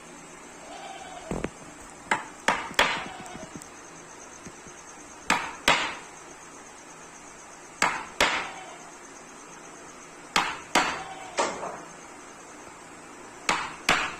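Hammer blows on a woodworking job, struck in short groups of two or three with a pause of about two seconds between groups, each blow sharp with a brief ring.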